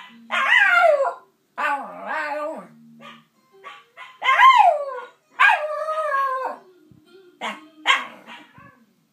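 Shiba Inu singing: a run of about six howls, some sliding down in pitch and others wavering and held for about a second, the last two short. A quieter, lower wavering tone sounds underneath.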